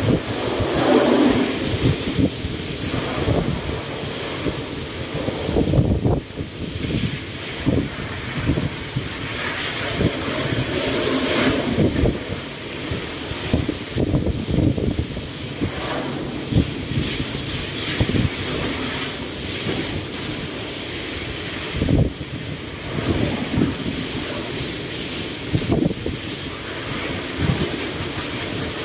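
Steady mechanical rumble and hiss, broken by frequent irregular low knocks and thumps.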